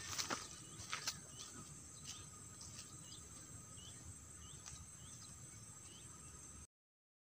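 Crickets and other night insects trilling in a steady high buzz, with short chirps repeating a little under twice a second and a few sharp clicks in the first second. It cuts off abruptly near the end.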